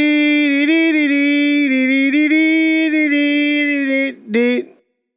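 A voice singing or humming one long held note at a nearly steady pitch, with slight steps in pitch. It breaks off about four seconds in, and a short sliding note follows.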